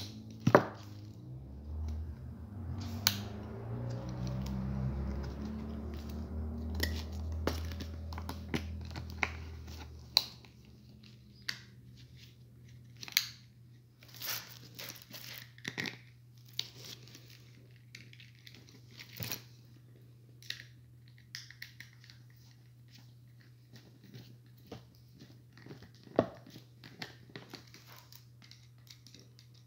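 Irregular small clicks, taps and scrapes of a screwdriver working on a plastic inline lamp-cord switch, over a steady low hum. A low rumble fills about the first ten seconds.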